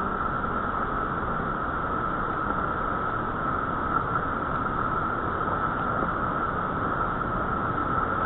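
Steady rushing of river whitewater, an even noise with no breaks.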